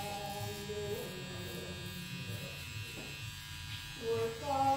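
A steady low electric buzz, with a person's voice in the first second and again near the end.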